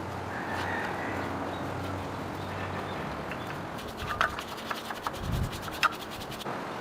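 A quick series of sharp clicks and taps with a low thump among them, over a steady background hum.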